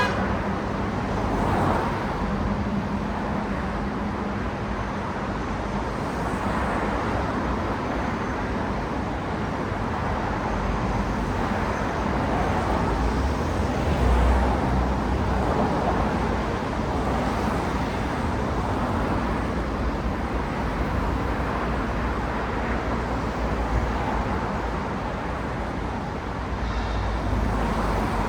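Steady road traffic: the tyre and engine noise of cars passing, blending into one continuous wash of sound.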